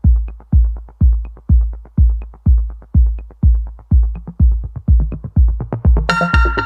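Electronic dance music with a steady kick drum about twice a second. A bass line joins about halfway, and bright synth chords come in near the end.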